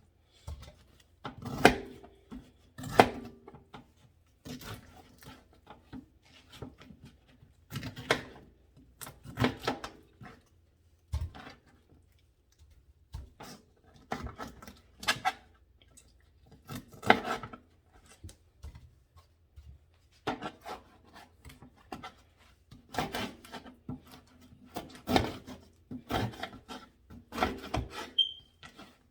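Kitchen knife cutting and scraping at a pineapple, with irregular knocks every second or two, some ringing briefly.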